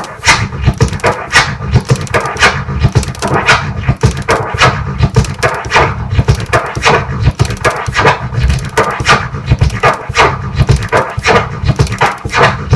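Turntable scratching of a kick-and-snare drum sample, repeating a hybrid combo: a three-click orbit cut with the crossfader on the forward stroke and three tear-like pauses on the backward stroke, eight sounds per cycle.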